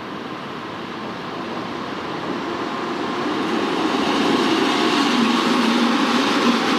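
EP2K diesel passenger locomotive approaching and passing close by, its engine and wheels on the rails growing louder over the first four seconds, then holding steady as its bogies go past.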